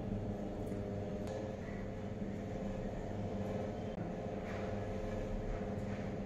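A steady low hum made of several held tones, with a few faint ticks over it.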